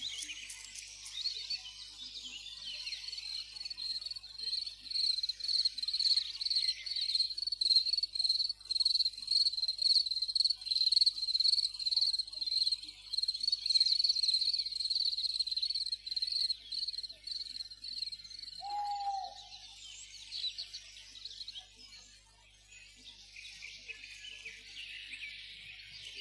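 Cricket chirping: a high, rapidly pulsing trill that thins out and stops about seventeen seconds in. A short lower note sounds about nineteen seconds in, followed by a faint hiss.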